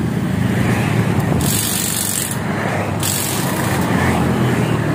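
Steady motor-vehicle traffic noise with engines running, and two short bursts of high-pitched hiss, the first about a second and a half in and the second about three seconds in.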